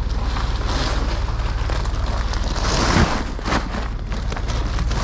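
Vehicle engine running with a steady low hum, under rustling and wind on the microphone. A louder rush of noise comes about three seconds in.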